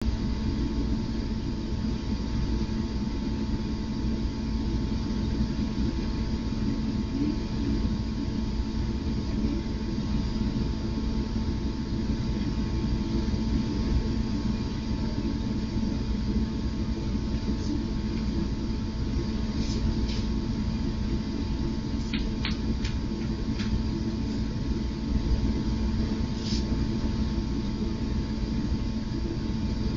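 Steady hum and hiss with a low rumble, picked up by a security camera's built-in microphone, with a few faint clicks about two-thirds of the way through.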